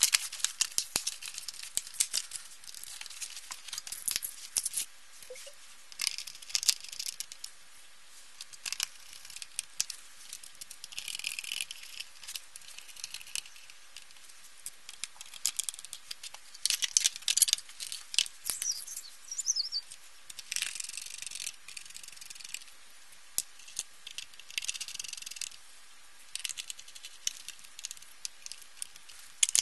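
Plastic casing of an Acer LCD monitor being handled and fitted back together: scattered clicks, rattles and short scraping rasps at irregular intervals.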